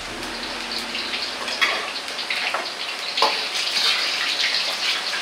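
Battered shrimp sizzling and crackling in hot oil in an iron wok as they are oil-blanched, with a sharper crack about three seconds in.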